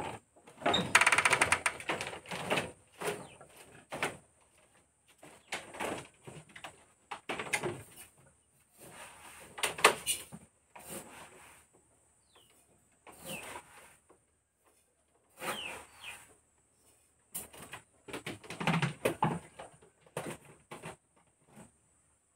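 Irregular clatter and knocks of a metal pot and plastic containers being handled, in short separate bursts with gaps between.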